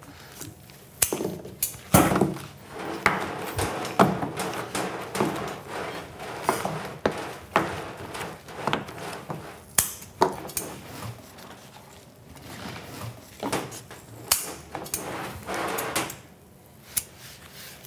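Irregular knocks, taps and clatter of sugar candy and hand tools being handled on a hard candy-making worktable.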